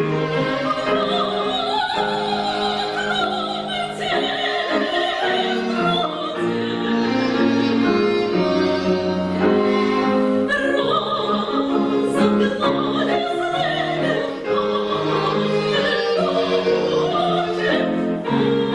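A woman sings in a classical, operatic style with wide vibrato, over an orchestral accompaniment with bowed strings.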